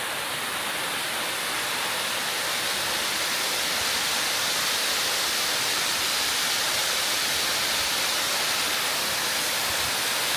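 Kiyotaki waterfall pouring steadily, a dense hiss of falling water that grows a little louder about two seconds in.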